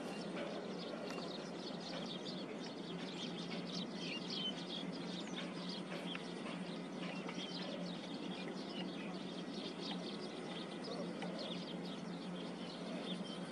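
Outdoor ambience of small birds chirping and twittering all through, over a steady low hum.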